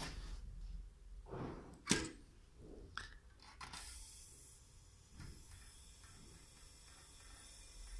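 A few sharp clicks and knocks, the loudest about two seconds in, then a faint steady hiss.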